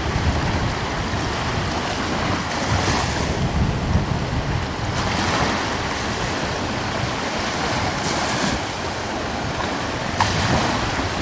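Wind blowing over the sea with a steady low rumble, and waves breaking and washing in every two to three seconds.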